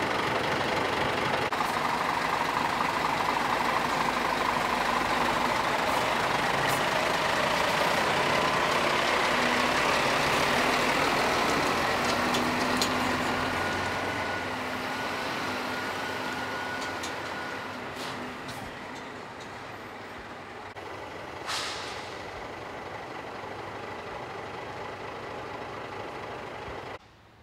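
Heavy truck diesel engine running close by, loud at first, then fading to a quieter, more distant engine in the second half. A short hiss about three-quarters of the way through, and the sound cuts off suddenly at the end.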